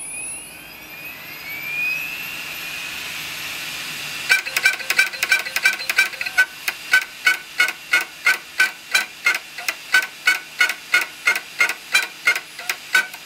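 Open IBM hard drive with a rising whine as it spins up, then, about four seconds in, its head-actuator voice coil starts barking: short, pitched barks in a steady rhythm of about three a second. A fault the owner calls the bark of death, in a drive that was flooded with water and knocked about.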